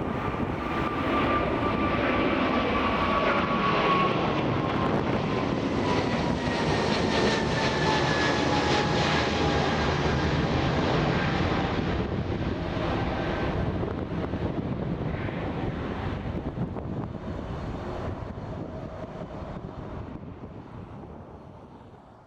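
Boeing 777's twin jet engines running at high power as the airliner passes by and departs: a loud roar with an engine whine that slowly falls in pitch, fading away over the last several seconds before cutting off.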